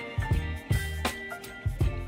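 Background music with a steady drum beat and a bass line.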